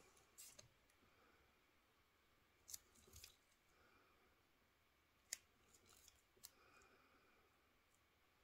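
Near silence: room tone with a few faint, short clicks scattered through it, the sharpest about five seconds in.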